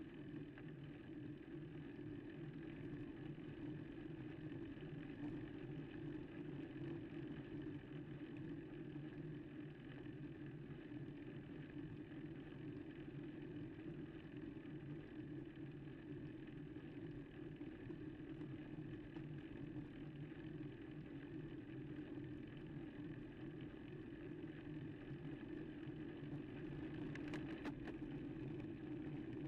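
Steady low rumble of road and wind noise picked up by a bicycle-mounted camera during a slow, steep climb.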